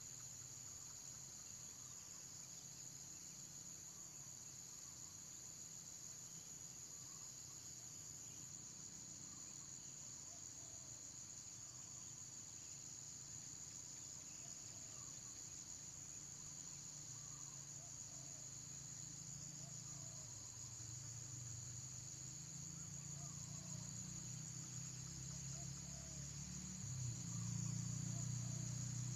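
Steady high-pitched insect chorus trilling without a break. A low rumble slowly builds underneath and is loudest in the last few seconds.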